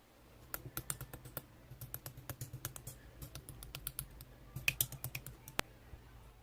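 Keyboard typing: irregular, faint key clicks a few per second, over a steady low hum. The clicks stop a little before the end.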